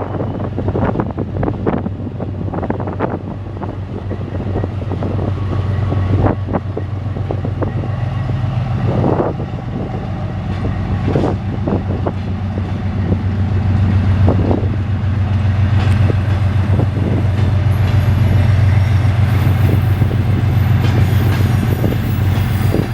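A train running, with a steady low hum and scattered clanks and knocks, growing louder from about four seconds in.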